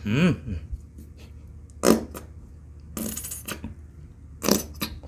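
A plastic squeeze bottle of sauce being squeezed upside down, sputtering and squirting in short bursts, with a few sharp plastic clicks. A warbling sputter comes right at the start and a hissing squirt about three seconds in.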